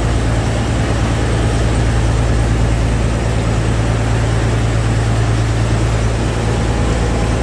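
Small fishing boat's engine running at a steady pace, a constant low drone.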